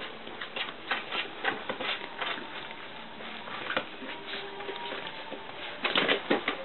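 Puppies scrabbling and tumbling over one another and their plush toys in a wooden whelping box: irregular clicks, taps and scuffs of paws and claws, busiest about six seconds in.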